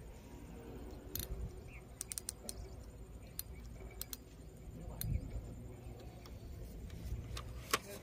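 Scattered sharp light clicks and rattles, a small cluster of them a couple of seconds in and a stronger one near the end, over a low steady rumble of microphone handling noise.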